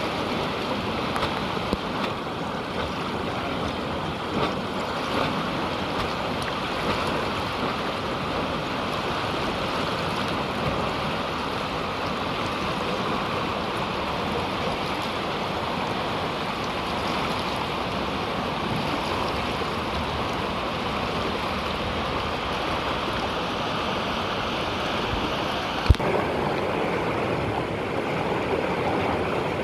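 Whitewater rushing steadily through a river rapid, the standing wave churning close by. A single sharp click sounds near the end.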